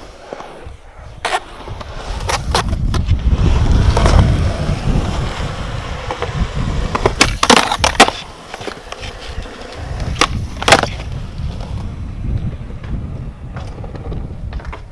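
Skateboard wheels rolling on a concrete skatepark surface, a steady rumble, broken by several sharp clacks of the board striking the concrete and a ledge, with a cluster of them a little past halfway.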